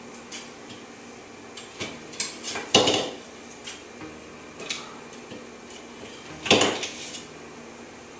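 Dishes and kitchenware clinking and clattering as they are handled on a kitchen counter: a string of light knocks, with two louder clatters, about three seconds in and about six and a half seconds in.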